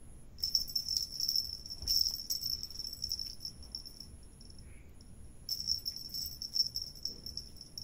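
A cricket trilling in two long bursts, a fast, high, buzzing pulse, over a faint steady high-pitched whine.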